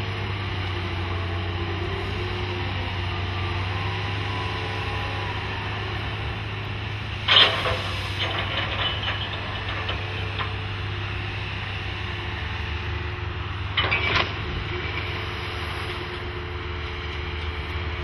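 SENNEBOGEN 650 HD duty-cycle crawler crane's diesel engine running steadily while it works a drag bucket. Two sudden loud metallic clatters come about seven seconds in and again around fourteen seconds in.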